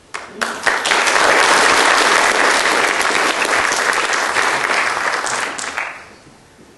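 Audience applauding: a few scattered claps build within the first second into steady clapping, which dies away about six seconds in.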